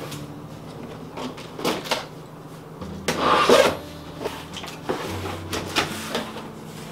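Scissors slitting the packing tape on a large cardboard shipping box and the flaps being pulled open: scattered scrapes and crinkles, with one louder rasp about three seconds in.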